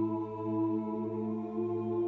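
Ambient background music: a low, sustained droning chord held steady.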